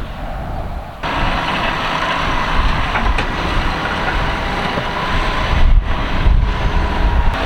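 Tractor engines and carrot-harvesting machinery running steadily, with a dense mechanical drone and low rumble. The sound changes abruptly about a second in and becomes louder and fuller.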